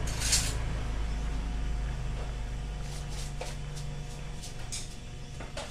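Wok of vegetables in coconut milk simmering on a gas burner: a steady low rumble that fades after about four seconds, with a short hiss just after the start and a few faint clicks later.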